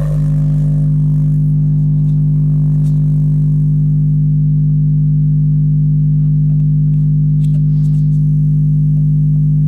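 Steady low 50 Hz test tone played through IK Multimedia iLoud Micro Monitor speakers, with strong overtones above it. A few faint ticks come near the end.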